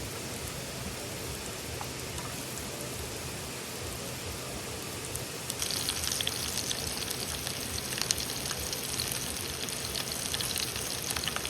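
Food sizzling and crackling in hot fat over a campfire, starting abruptly about halfway through after a steady low hiss.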